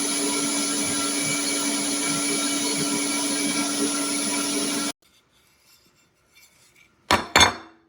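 Sunmile 1000 W electric meat grinder motor running with a steady hum and a high whine, then switched off abruptly about five seconds in. Two sharp knocks follow near the end.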